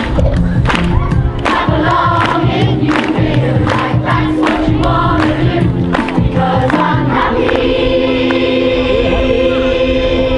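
Choir singing a rhythmic song over a steady beat, settling into a long held chord about seven seconds in.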